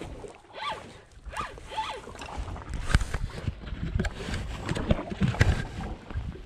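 Spinning fishing reel being cranked, a ratcheting whir, with sharp knocks of rod handling from about halfway through.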